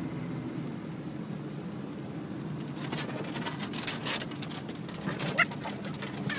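Vehicle running, heard from inside the cab as a steady low hum. From about three seconds in come a run of sharp taps, and near the end a dog gives two short, high whimpers.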